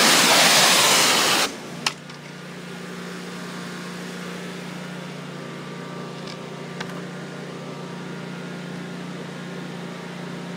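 Pressure washer spray hissing loudly, then cutting off suddenly about a second and a half in. A steady low machine hum carries on after it, with two light clicks.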